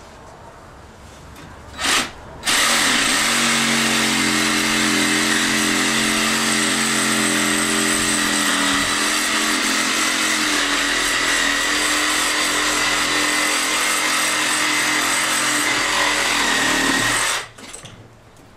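Cordless reciprocating saw cutting down through a hanging sheep carcass to split it in half: a brief blip about two seconds in, then running steadily for about fifteen seconds before it stops.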